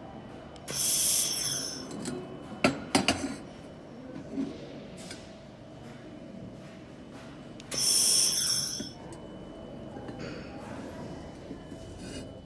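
Handheld laser welder firing on a round pipe: two bursts of about a second each, a loud hiss with a high whine, one near the start and one about eight seconds in. A few sharp clicks come between them.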